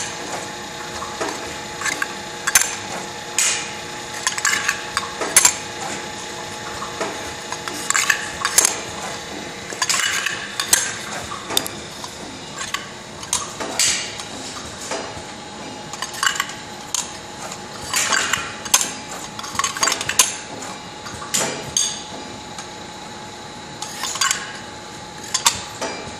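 Automatic loading machine setting short metal cylinders into a slotted steel jig: repeated metallic clinks and clacks at uneven intervals, about one or two a second, over a steady machine hum.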